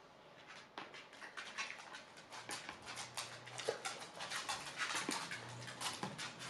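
Close, wet chewing and mouth smacking of a man without teeth gumming a sushi bowl of rice, salmon, tuna and vegetables, a rapid run of small clicks and smacks. A spoon scrapes and clicks in the bowl.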